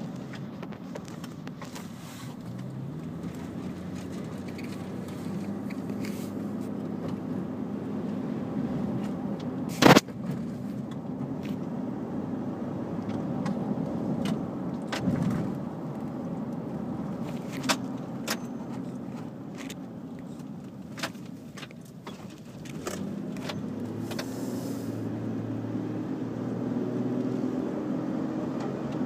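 Car engine and road noise heard from inside the cabin while driving, the engine note climbing as the car accelerates near the end. Scattered short clicks and rattles, with one sharp knock about ten seconds in.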